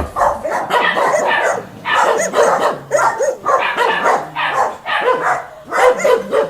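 A dog barking and yipping over and over, about two short barks a second.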